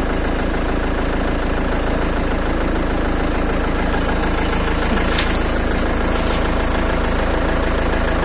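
Vehicle engine running with a steady, even drone.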